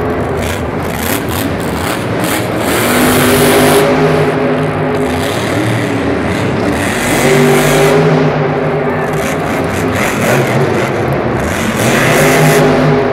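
Grave Digger monster truck's supercharged V8 engine revving hard in repeated throttle bursts, climbing to high revs about three times.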